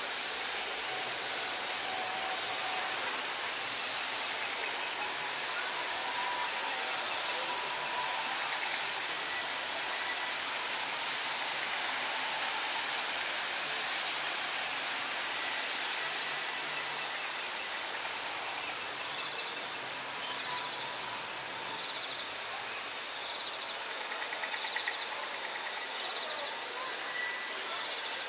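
Steady rush of falling water from a waterfall, with faint high chirps scattered over it.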